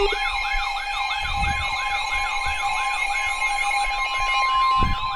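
Emergency Alert System attention signal, two steady tones sounding together, under a fast siren-like warble that sweeps up and down about four times a second.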